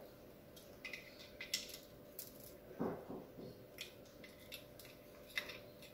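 Faint scattered clicks, taps and rustles of a power adapter and its cable being handled and plugged in, with a soft knock about three seconds in, over a faint steady hum.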